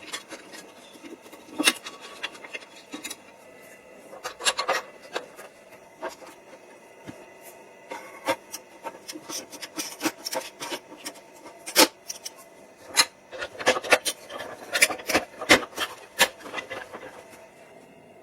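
Irregular scraping and rubbing strokes mixed with sharp clicks, coming in clusters, with a busy run in the last few seconds.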